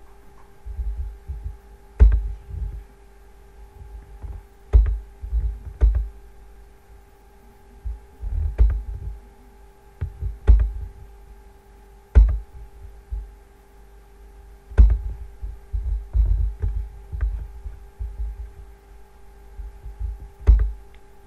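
Computer mouse clicking at irregular intervals, about every one to three seconds, each click with a low thud, as score cells are clicked one after another; a steady electrical hum runs underneath.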